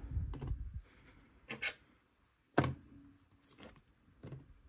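Hard plastic card holders being handled and set into clear plastic display stands: a soft rustle of handling, then a few separate light clicks and taps, the sharpest about two and a half seconds in.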